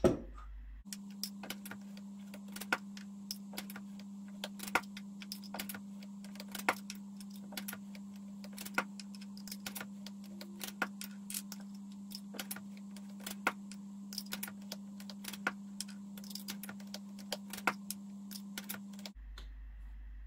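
Metal clicks and clacks of a MEC 600 Jr. shotshell reloading press being cycled over and over as powder charges are thrown into hulls, with a bigger clack about every two seconds. A steady low hum lies underneath.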